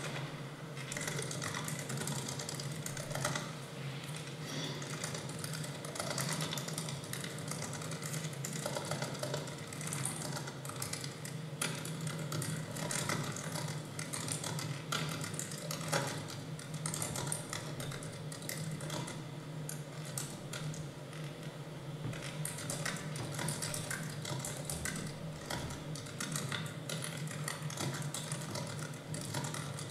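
Typing on a computer keyboard: rapid, irregular key clicks over a steady low hum.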